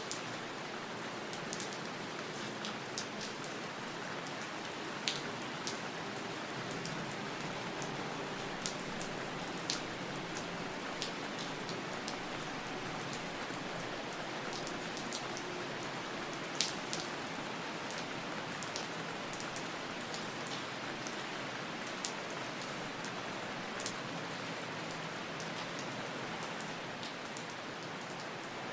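Steady rain falling, a constant hiss with many individual drops landing as sharp, irregular ticks.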